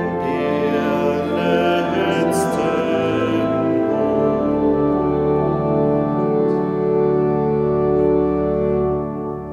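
Organ music: a passage of moving notes, then long held chords from about four seconds in. The final chord stops near the end and its sound dies away in the church's echo.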